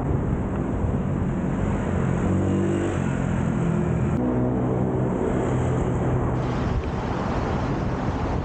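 City street traffic with a vehicle engine humming close by for a few seconds, over heavy wind rush on the microphone from skating.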